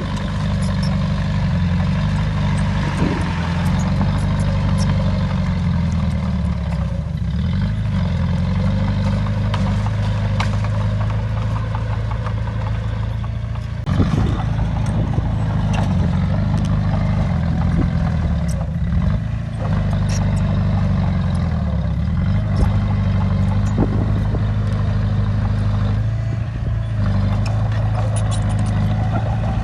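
Bulldozer's heavy diesel engine working under load, its note rising and falling repeatedly, with scattered metallic clanks from the machine.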